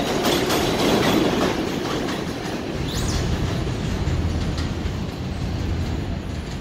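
New York City subway L train pulling out, its wheels clattering over rail joints and fading as it moves away, with a brief high wheel squeal about three seconds in.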